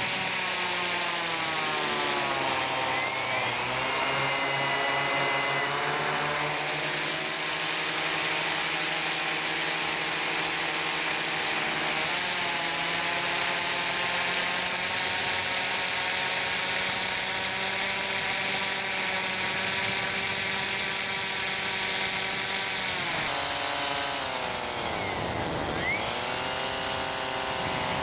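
Blimp's propeller motors whining close to the onboard camera, their pitch sliding down and back up several times as the motor speed changes, with a deep dip and climb near the end.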